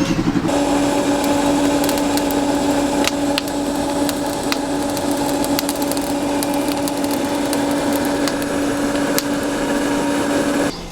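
A power tool's motor starting and running at one steady pitch, with scattered sharp ticks over a hiss, then cutting off just before the end.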